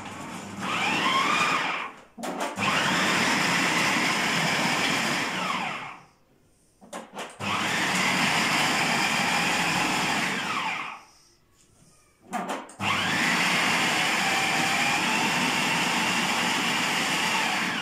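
Electric food processor mincing garlic cloves, run in four pulses of a few seconds each with short pauses between. The motor's whine climbs as it spins up and sinks as it slows.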